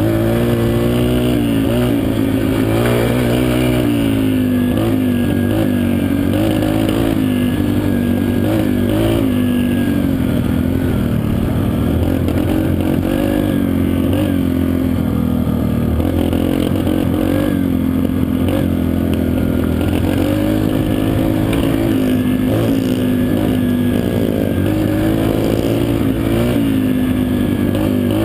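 Dirt bike engine running under way, revving up and down with throttle and gear changes, heard close up from a helmet camera.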